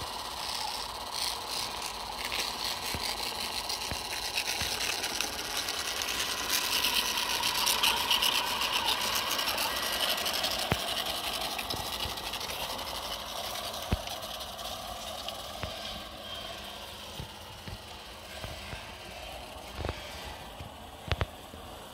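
G-scale garden-railway track-cleaning locomotive running along the rails: the whine of its electric motor rises and falls in pitch over a scrubbing hiss from its cleaning brush. It gets louder as it passes, about eight seconds in, then fades. A few sharp clicks come near the end.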